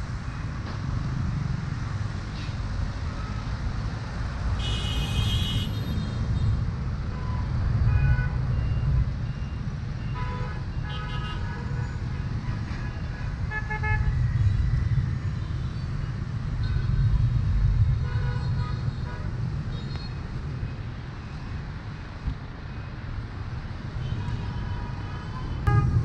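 City street traffic of cars and motorbikes: a steady rumble of engines and tyres with vehicle horns tooting. A loud, high horn blast sounds about five seconds in, and a run of short toots follows around the middle.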